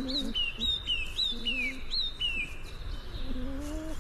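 Songbird singing a quick run of short, down-slurred chirps, alternating between two pitches, over low drawn-out calls that come and go.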